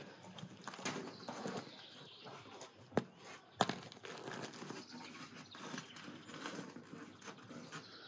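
Baked loaves being pulled from a clay tandoor with a metal hook: crusty bread scraping and rustling against the clay rim and the other loaves, with a few sharp knocks, two of them, close together, about three seconds in.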